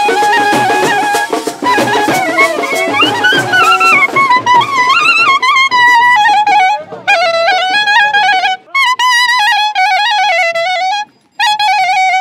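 Clarinet playing a wavering, ornamented folk melody. For the first few seconds it plays over other instruments and drum beats, then carries on alone in short phrases with brief breaks.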